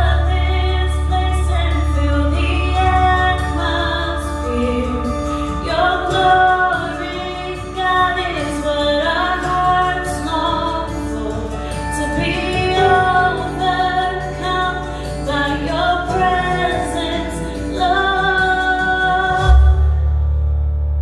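A worship song with a woman singing the melody over a steady low accompaniment. The music stops about 19.5 seconds in, leaving a low steady hum.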